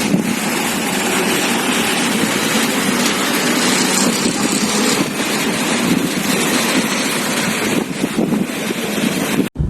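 Strong snowstorm wind blowing hard across the microphone, a loud steady rushing that cuts off abruptly near the end.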